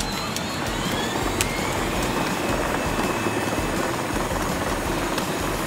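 Battery-powered ride-on toy vehicles, a small electric scooter and a mini dirt bike driving past: a steady whir of electric motors and tyres rolling on asphalt, with a faint rising motor whine in the first two seconds and a single click partway through.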